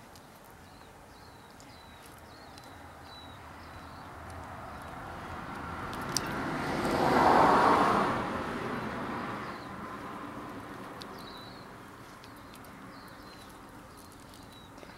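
A car passing by: its noise swells slowly to a peak about halfway through and then fades away.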